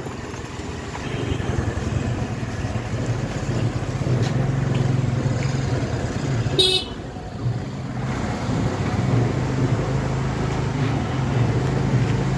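A motor scooter's engine running steadily as it rides along, with road noise. One short horn toot a little past halfway through.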